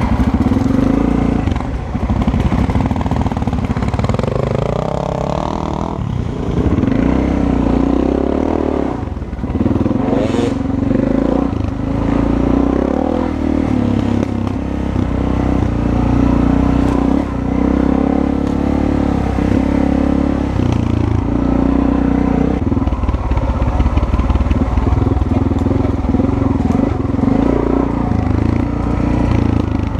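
Dirt bike engine running under the rider as it rides a bumpy track, its pitch rising and falling with the throttle, with clatter over the rough ground.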